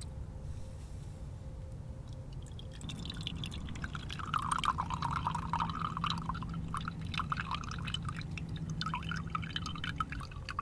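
Pomegranate juice trickling and dripping into a small bowl as a halved pomegranate is squeezed by hand, with crackling from the squeezed seeds and rind. The pouring begins about three seconds in and grows stronger a second later.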